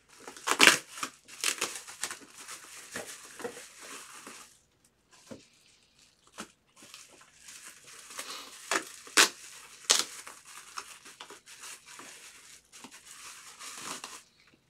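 Plastic bubble wrap crinkling and tearing as it is pulled off a box by hand, in two spells of rustling with sharp snaps and a short lull between.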